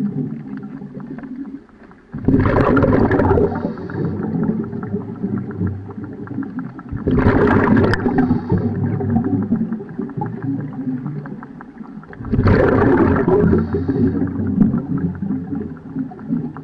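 Scuba diver's regulator breathing heard underwater: three bursts of exhaled bubbles, each about two seconds long and about five seconds apart, with a lower steady rumble between them.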